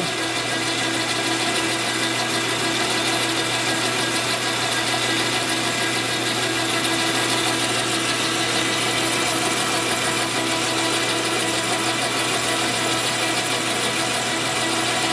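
JET metal lathe running steadily with its chuck spinning, a constant machine hum with a steady whine from the drive.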